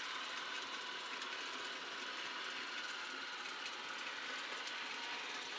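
Model train running on the layout: a steady mechanical whir and rattle of the motor, gears and wheels on the track, with faint clicks throughout.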